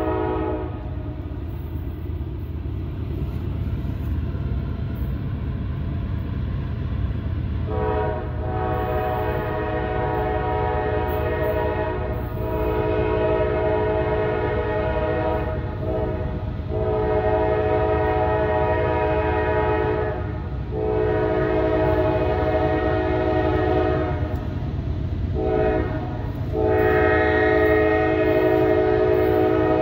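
Diesel locomotive air horn blowing a series of blasts over the steady low rumble of a passing train. Most blasts are long, with a couple of short ones, and the horn falls silent for several seconds near the start. It finishes on long, long, short, long, the grade crossing warning signal.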